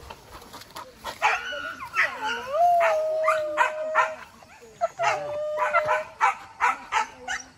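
Hunting dogs barking in quick succession, with two long, steady howls in the middle.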